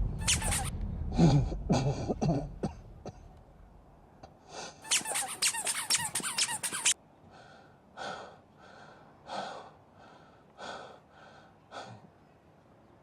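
Squeaky, gasping breaths: a loud irregular run at first, a dense stretch of rapid squeaky strokes that cuts off abruptly, then shorter spaced gasps that fade.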